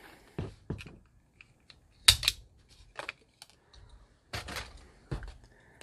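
Hand wire stripper clicking and snapping as it strips the insulation from the end of a thin hookup wire. There are a few separate sharp clicks spread over several seconds, the loudest about two seconds in.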